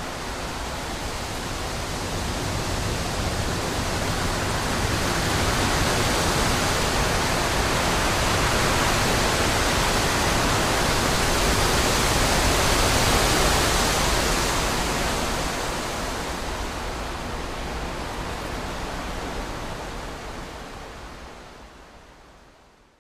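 Wind rushing through trees: an even rushing noise that swells to a peak about halfway through, then fades away to nothing near the end.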